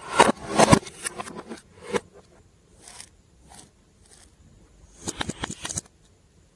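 Glossy slime being squished and stretched by hand, giving sticky clicks and pops in clusters: a dense run over the first two seconds, a few faint ones after, then another run about five seconds in.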